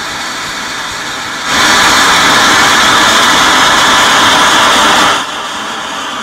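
Steady rushing hiss of gas flow from a three-chamber hybrid rocket test rig. It surges much louder about a second and a half in, holds for nearly four seconds, then drops back to a lower hiss.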